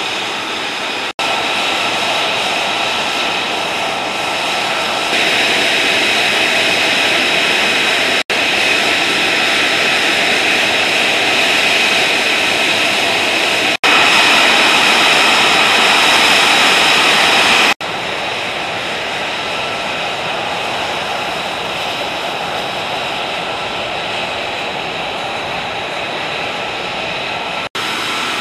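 F-35C Lightning II's single Pratt & Whitney F135 turbofan running at ground idle: a steady rushing jet noise with a high whine on top. It breaks off for an instant several times, and its loudness shifts a little after each break.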